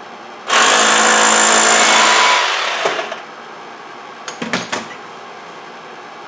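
Hammer drill boring into a concrete block wall for about two seconds, then winding down. A few short knocks follow.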